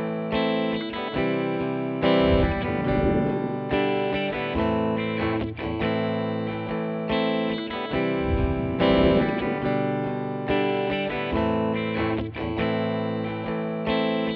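Intro music: electric guitar playing a repeating chord progression with an effects-laden, slightly distorted tone.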